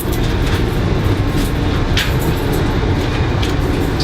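Amtrak passenger train running: a steady low rumble of wheels on the rails, with a few short clicks.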